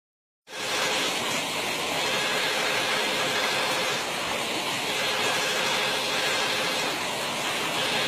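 Steady rushing of a small, fast-flowing stream, starting about half a second in, with a faint steady hum underneath.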